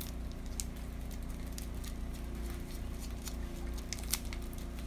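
Faint crinkling and crackling of foil-wrapped seasoning cubes being unwrapped and crumbled by hand into a pot, scattered light ticks over a steady low hum.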